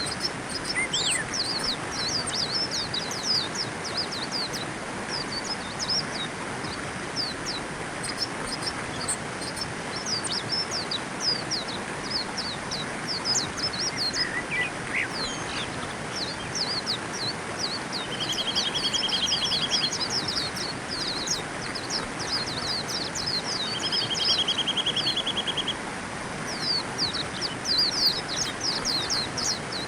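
A flock of white-eyes chirping, with many short high calls running on without pause. Twice a buzzy trill lasting about two seconds joins in, over a steady background hiss.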